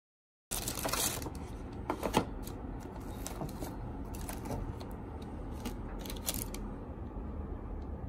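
Plastic carrier bags rustling and crinkling as a plastic takeaway sushi tray is lifted out, starting about half a second in, with scattered sharp crackles over a steady low hum.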